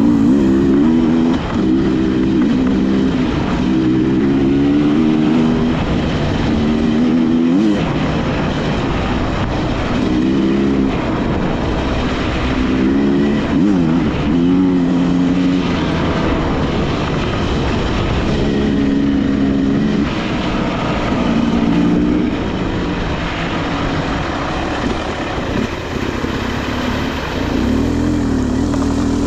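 Enduro dirt bike engine being ridden along a trail, its pitch rising and falling over and over as the throttle opens and closes.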